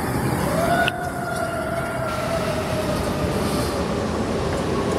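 A fire engine's Federal Q2B mechanical siren whining over heavy engine and road noise. Its pitch rises about half a second in, then slowly winds down.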